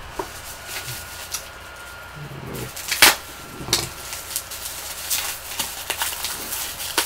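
Bubble-wrap packaging crinkling and crackling as it is unwrapped by hand, with irregular sharp snaps throughout; the loudest snap comes about three seconds in.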